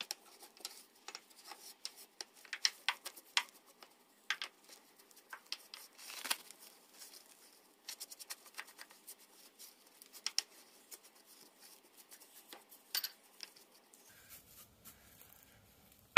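Hand brush scraping and sweeping soot out of a steam locomotive's smoke box: irregular scrapes and taps of bristles and grit against metal, with short pauses between strokes.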